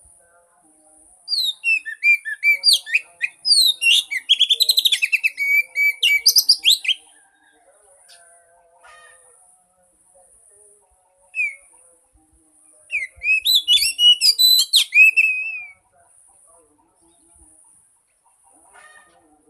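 Oriental magpie-robin song: two bouts of varied clear whistles and fast trills, the first lasting about six seconds and the second about three, with a single short note between them. This is a lure song played to coax a silent magpie-robin into singing.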